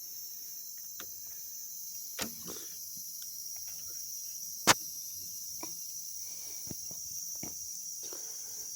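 A steady high-pitched hiss with a handful of short, sharp clicks and taps scattered through it; one click about halfway through is clearly the loudest.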